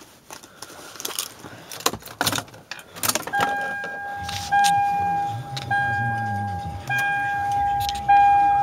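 Keys jangling and rustling in a car, then the 2001 Toyota Avalon's warning chime sounds about three seconds in as a clear tone repeating roughly once a second. A low engine rumble comes in under the chime about halfway through.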